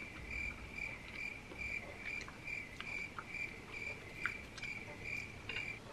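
Cricket chirping: a high, even chirp repeated about two and a half times a second, starting and stopping abruptly. There are a few faint clicks of a fork against a plate.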